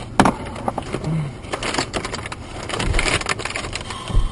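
Irregular knocks, crunches and rustling inside a car that has just crashed.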